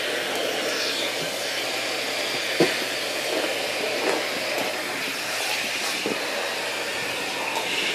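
Vacuum cleaner running steadily, a rushing hiss of suction through its hose. There is a sharp knock about two and a half seconds in and a couple of fainter knocks later.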